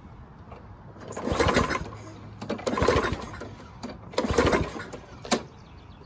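Lawn Boy mower's Tecumseh engine being pull-started three times, about a second and a half apart, each pull a short loud whirring burst as the engine turns over, followed by a sharp click. The engine does not keep running; it would only run a second or two on prime.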